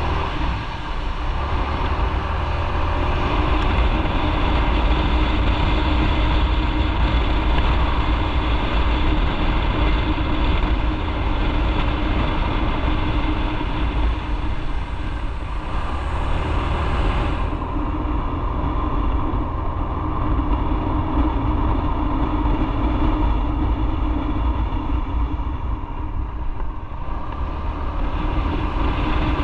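Motorcycle running at a steady pace under a strong low rumble. The high hiss drops away about two-thirds of the way in and comes back near the end.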